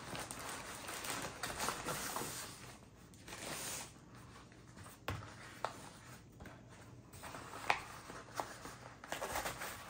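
Parcel packaging rustling and crackling as it is handled and pulled at by hand in an effort to get it open, with a few sharp crackles.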